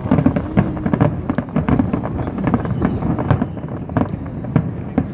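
Fireworks display: shells bursting in a rapid, irregular string of bangs and crackles, several a second, over a continuous low rumble.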